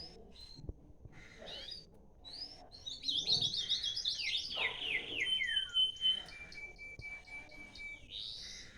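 Songbird singing: a few short rising chirps, then a fast run of downward-slurred notes about three seconds in, followed by long, steady whistled notes and a rising note near the end.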